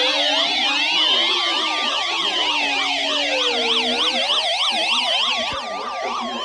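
Several sirens sounding together: slow rising-and-falling wails overlapping fast up-and-down yelps.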